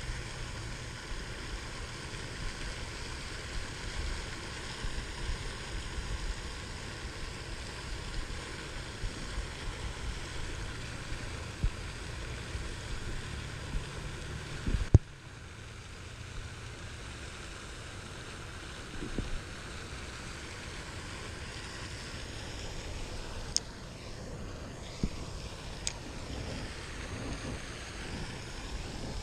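Wind buffeting the microphone over a steady hiss, with a sharp click about halfway through, after which the rumble eases a little.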